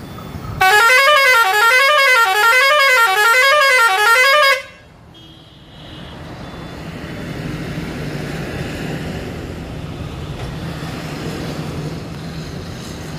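Tata goods truck's musical horn sounds loudly for about four seconds, its pitch warbling up and down about twice a second, then cuts off. A steady low hum follows.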